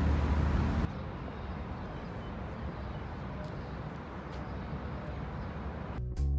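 Outdoor city ambience: a steady low rumble with a faint hiss, louder for about the first second. Music starts just before the end.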